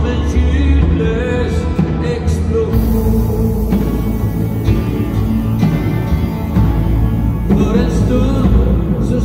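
Live band playing: acoustic guitar, electric guitar, upright bass and drums.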